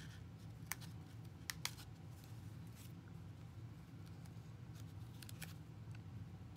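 Fingers handling a small cardboard loom, slipping yarn loops off its notched edge: a few sharp little clicks and ticks about a second in and again near the end, over a steady low hum.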